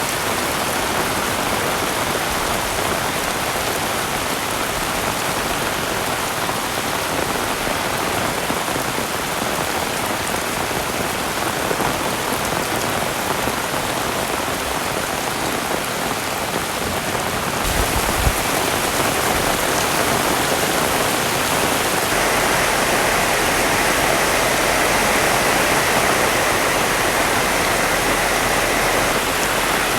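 Heavy rain falling steadily, a dense, even hiss of drops on surfaces. A brief low thump comes a little past halfway, after which the rain sounds slightly louder, with a faint low hum underneath.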